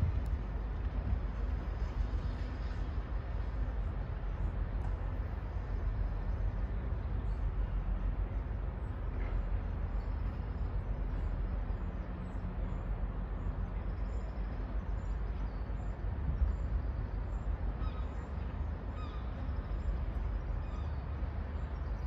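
Steady low rumble of outdoor city ambience. About halfway through, faint, evenly spaced high chirps come in.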